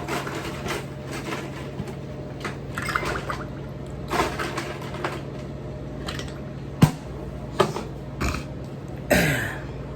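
Someone drinking water, with liquid sounds and a few sharp clicks over a steady low hum.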